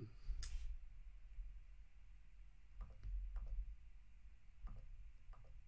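A few faint computer mouse clicks, in small clusters, over a low steady hum.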